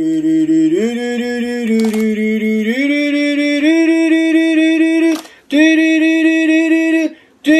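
A voice holds long, steady sung notes that step up in pitch a few times, cut by a short break about five seconds in and again near the end.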